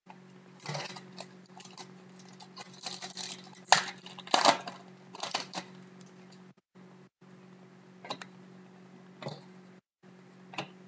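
2011-12 Pinnacle hockey cards being handled: the stack is shuffled through card by card, with short papery rustles and light clicks of card edges sliding against one another, in clusters and then a few single ticks. A faint steady hum lies underneath.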